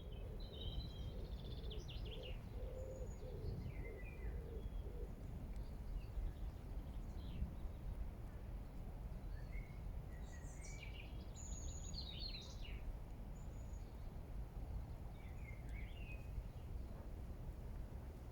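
Songbirds singing in short, scattered phrases of chirps and trills, over a steady low background rumble.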